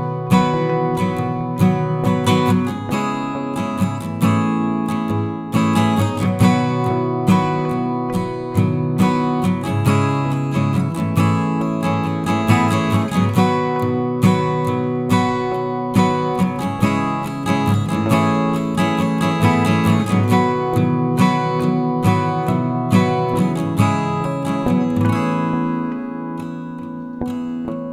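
Background music: strummed acoustic guitar with a steady rhythm, no singing.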